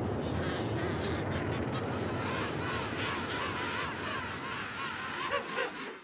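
A penguin colony calling: many birds squawking over one another in a dense, steady chorus that cuts off suddenly at the end.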